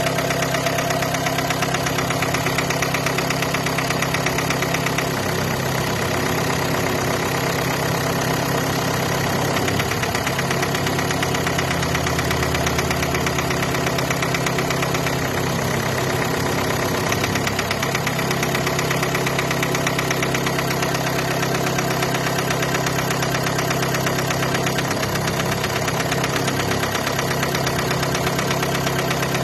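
Renault Mégane's 1.5 dCi (K9K) four-cylinder turbodiesel running steadily at idle with a rapid, even knocking: the knock of a faulty fuel injector.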